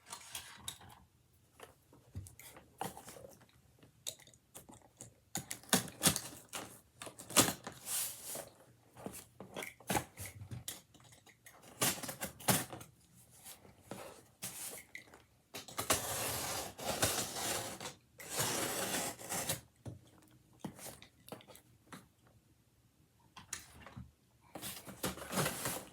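Cardboard shipping box being opened and unpacked by hand: packing tape pulled and torn, cardboard flaps and packaging handled, in many short clicks and knocks with longer stretches of rustling and tearing, the longest about two thirds of the way in.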